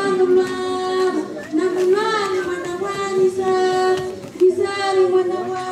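A single high voice singing a devotional chant in long, held, ornamented notes, with short pauses for breath between phrases.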